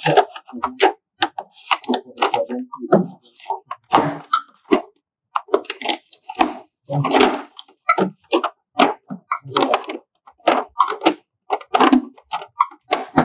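Irregular cracks and knocks from hands pulling and smoothing DTF transfer film under a printer's pinch rollers, with a few louder ones about four, seven and twelve seconds in.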